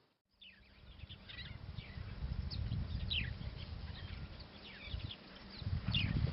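Many birds chirping, short quick calls that sweep downward in pitch, over a low steady rumble. The sound cuts in after a brief gap right at the start.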